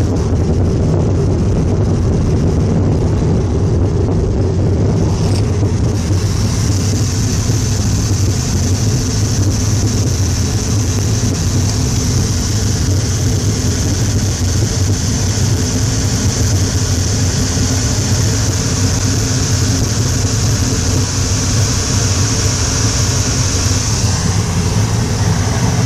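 Foundry furnace burner and blower running with a steady low roar just after the furnace has been lit, with the gas torch heating the die adding to it. A higher hiss joins about six seconds in and drops away near the end.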